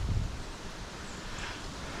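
Wind buffeting the microphone in the woods, a low rumble strongest in the first moment, with faint rustling of leaves.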